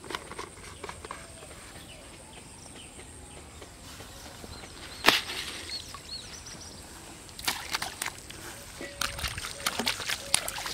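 Water sloshing at a pond's edge, with one sharp crack about five seconds in. Near the end comes a run of splashes as a fish hooked on a hand line thrashes at the surface.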